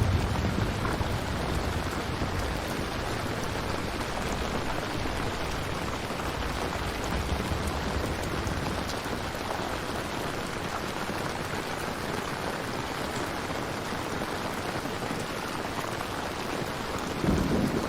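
Steady rain falling. A low thunder rumble dies away in the first second, and another rumble of thunder starts near the end.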